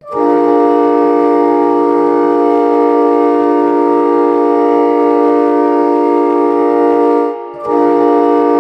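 Ice hockey goal horn sounding a held chord of several tones: one long blast of about seven seconds, a brief break, then a second blast.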